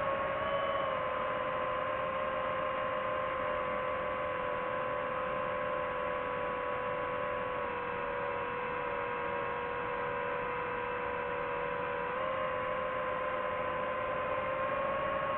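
DJI FPV drone's motors and Gemfan Hurricane 5236 propellers whining steadily in flight. The pitch drops a little about a second in and again around the middle, then rises back up about twelve seconds in, as the throttle changes.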